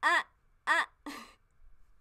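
A woman laughing: two high 'ha' notes that rise and fall in pitch, about two-thirds of a second apart, then a breathy trailing laugh.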